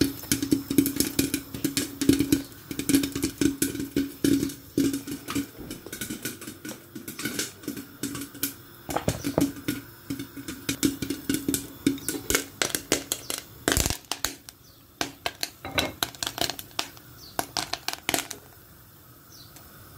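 Popcorn in a hot cast-iron pot crackling and clattering: a dense run of irregular clicks and pops that stops about 18 seconds in. A low steady hum sits under the first few seconds.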